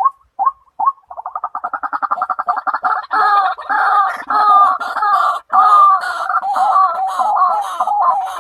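White-breasted waterhen calling: single short notes about two a second, speeding up about a second in into rapid pulsed notes. By about three seconds in these build into a loud, continuous run of croaking, gurgling calls, broken once by a brief pause.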